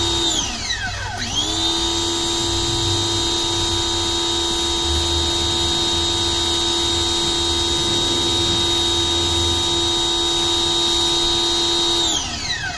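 Ryobi electric pressure washer's motor and pump running at a steady high whine while spraying. About half a second in, the trigger is let go and the pitch falls as the motor winds down; it spins back up a little over a second in. Near the end it winds down again and stops as the trigger is released.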